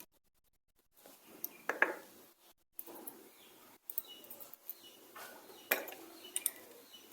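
Faint scattered clicks and light scraping of small tools working paste over a keypad mobile phone's circuit board to clean off corrosion. It starts about a second in, with the sharpest ticks near two and six seconds in.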